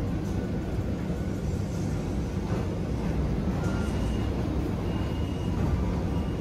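Steady low rumble and hum inside a BTS Skytrain car as it creeps to a stop at an elevated station platform.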